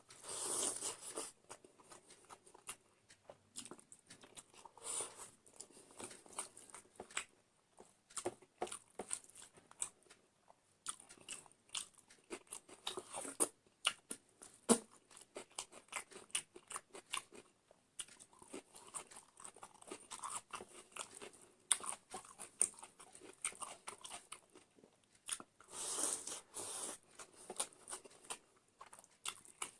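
A person eating close to the microphone: chewing and crunching with many small irregular clicks and mouth noises.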